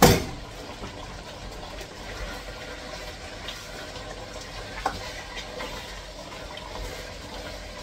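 A sharp knock at the start, then a pot of spinach soup simmering on an electric hob with a steady watery bubbling, while a spoon stirs it and clinks against the pot about five seconds in.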